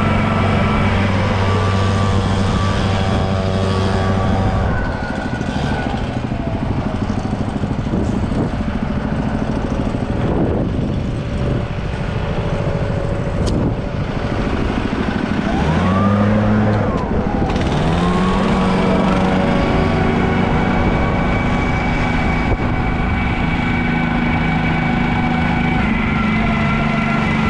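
Small gasoline engine of a PermaGreen Triumph ride-on spreader running steadily. It eases off about five seconds in and revs back up a little past halfway, with two rising sweeps in pitch.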